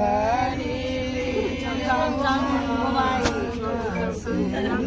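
Several voices singing together without instruments, in long held notes that glide up and down, over a steady low hum.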